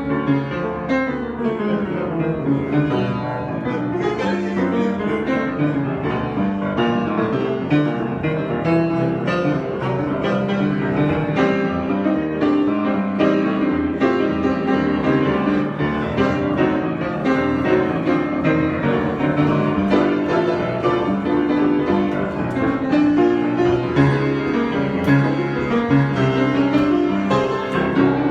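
Solo piano playing an improvised piece, a steady stream of many struck notes in both low and middle registers.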